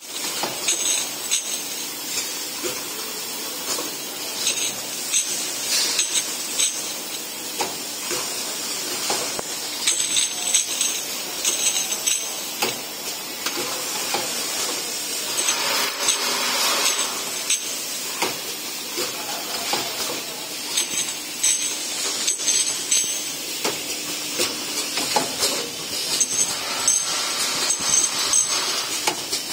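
Automatic glass-bottle screw-capping line running: small glass bottles clink and jingle against each other on the conveyor over a constant clatter of the machine, with a stretch of hissing about halfway through.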